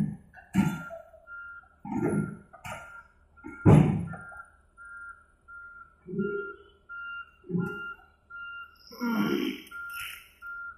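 Excavator travel alarm beeping at a steady pitch about twice a second on the Volvo EC300DL, with loud, short, low-pitched bursts breaking in every second or two.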